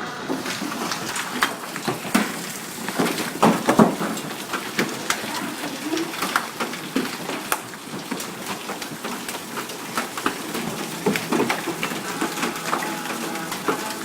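Hailstones pelting hard surfaces in a dense, irregular patter of sharp clicks and knocks over a steady hiss, with a cluster of louder strikes about three and a half seconds in.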